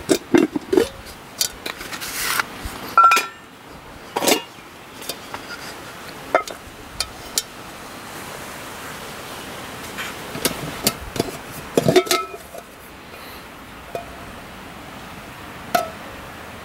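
Clinks and knocks of a small non-stick camping pot being handled: its wooden lid is lifted off and set down, and the wire bail handle knocks against the metal pot, a few strikes ringing briefly. The knocks come in two busy clusters, then a few single knocks.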